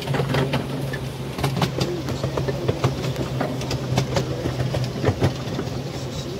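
Train wheels running along the track, heard from on board: a steady low hum with many sharp clicks and knocks from the wheels over the rails.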